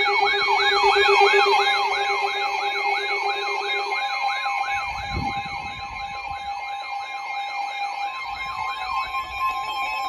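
Several NOAA weather alert radios alarming together for a shelter-in-place warning: a siren-like warble rising about three times a second over steady high alert tones. Near the end the warble stops and a steady tone carries on alone.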